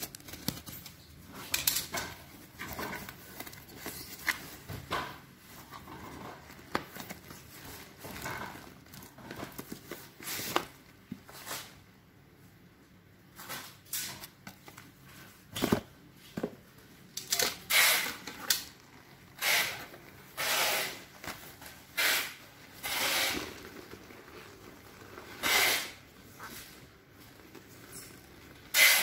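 Handling noises from unpacking a cardboard box with a utility knife and pulling out a folded Intex vinyl inflatable: cardboard scraping and rubbing, and crinkling plastic in short irregular bursts that grow louder and more frequent in the second half, ending in a sharp loud crinkle.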